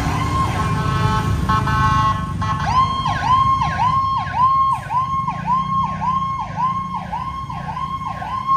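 Emergency-vehicle siren holding a tone, then switching about two and a half seconds in to a fast yelp of about two rise-and-fall sweeps a second, over a low traffic rumble.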